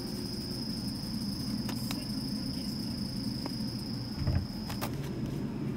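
Supermarket background hum at a refrigerated produce shelf, with a constant high-pitched whine over it that fades about five seconds in. A few light clicks and a soft knock about four seconds in as a plastic clamshell pack of herbs is picked up.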